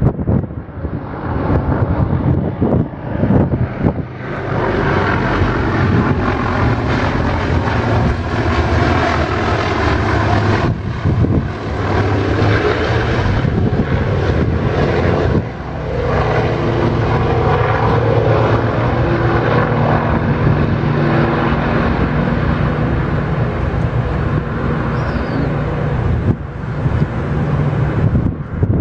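Canadair amphibious water bomber flying low, its two engines and propellers droning loudly with a steady pitched hum, as it skims the water surface to scoop up a load. The drone's tone shifts abruptly a few times.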